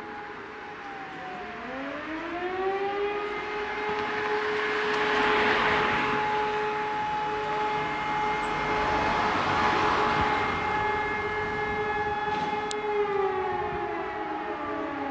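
Electric motor sirens of the E57 type sounding a fire-brigade alert: the nearest one winds up over the first few seconds, holds one steady wailing tone for about ten seconds and starts to wind down near the end, while other sirens across the district are heard at different pitches.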